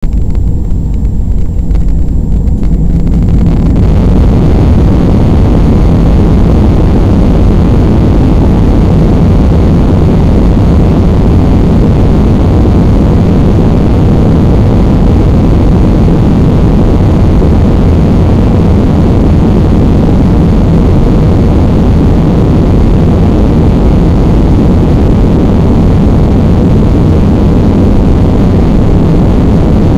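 Airbus A320 jet engines spooling up to takeoff thrust about three seconds in, then running loud and steady through the takeoff roll as a deep, dense rumble.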